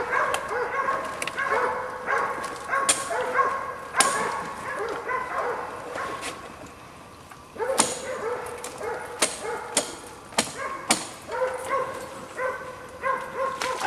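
Hog-hunting bay dog barking over and over, a couple of short barks a second, breaking off for about two seconds midway before starting again. Sharp snaps and clicks are scattered among the barks.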